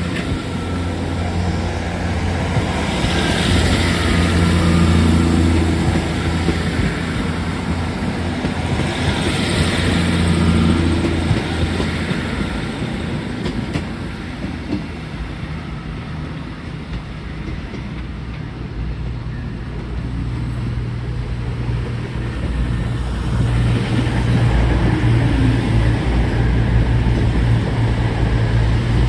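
Train running, a steady low rumble with two swells of louder noise about three and ten seconds in, and a deeper hum that grows louder about two-thirds of the way through.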